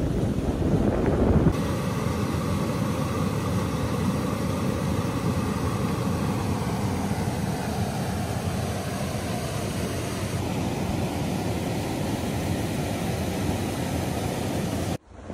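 Wind rushing and buffeting the microphone, a steady noise that changes abruptly a second or so in and again partway through, with a brief drop-out near the end.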